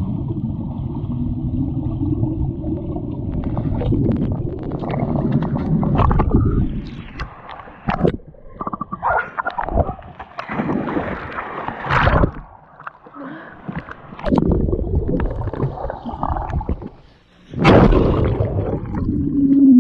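Muffled underwater splashing and bubbling as a dog plunges into a pool, heard through an action camera below the surface. It then turns into irregular sloshes, gurgles and sharp knocks as the camera bobs in and out of the water.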